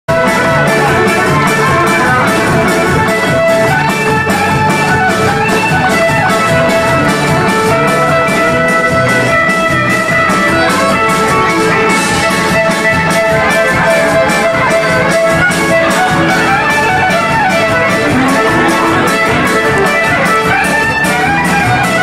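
Instrumental music with a steady beat.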